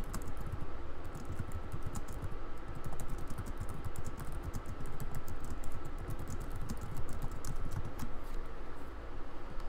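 Typing on a computer keyboard: a quick, irregular run of key clicks over a low background rumble, thinning out near the end.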